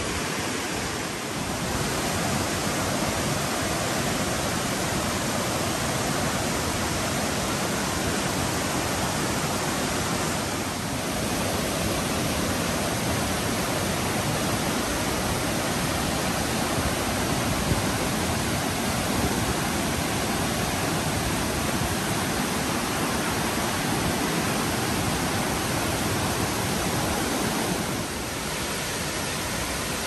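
Waterfall's falling water: a steady, dense rushing noise with no other sound standing out. The level dips slightly about a second in, around ten seconds, and near the end.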